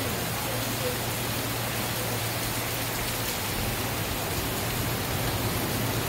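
Heavy tropical-storm rain pouring steadily on the resort grounds, a dense even hiss.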